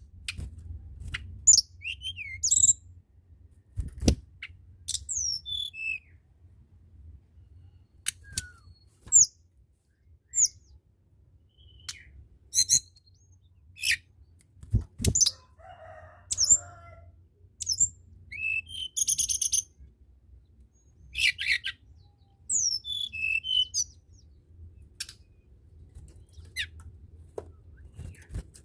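Tledekan gunung (Sunda robin) singing in short, separate bursts of high, sharp, sweeping notes every second or so, with brief pauses between phrases, over a faint low hum.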